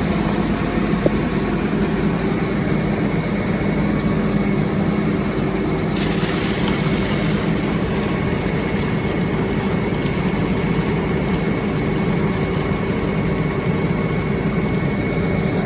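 Farm sprayer rig's engine idling steadily, with a steady hum throughout. About six seconds in, a hiss joins it and holds on.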